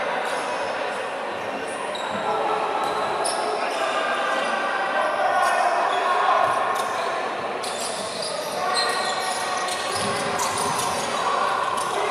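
Live basketball play on a wooden court: the ball bouncing as it is dribbled, with sneakers squeaking and indistinct voices of players and spectators, all echoing in a large sports hall.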